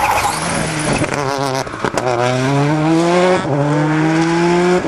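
Ford Focus WRC rally car's turbocharged four-cylinder engine accelerating hard past, its pitch rising through the gears with two upshifts, about two and three and a half seconds in. A sharp crack comes with the first shift.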